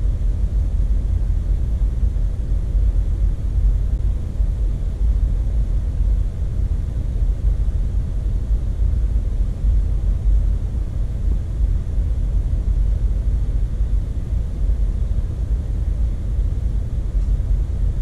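Jeep Wrangler driving on a dirt road, a steady low rumble with no sharp knocks or bangs.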